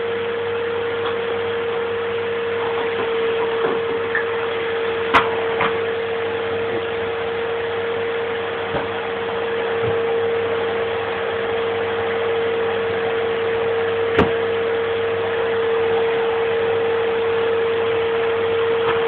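Vacuum cleaner running steadily, a constant motor whine over a rushing noise. Two sharp knocks break through, about five seconds in and again near fourteen seconds.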